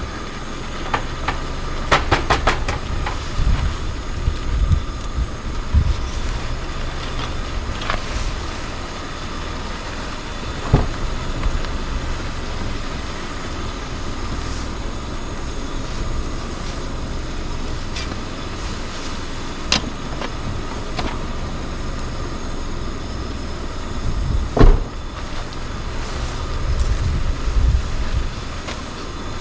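Food browning in a pot on a camp stove: a steady sizzle and burner rush, with scattered clicks and scrapes of a utensil against the pot and one louder knock about three-quarters of the way through.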